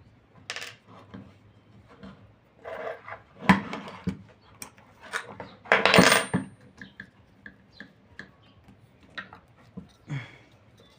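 Metal parts and screws of a stand fan being handled as it is taken apart: irregular clicks and clatter, the loudest about six seconds in.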